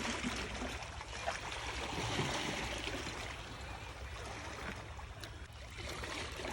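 Sea water washing and trickling among shore rocks: a steady noise with a few faint clicks.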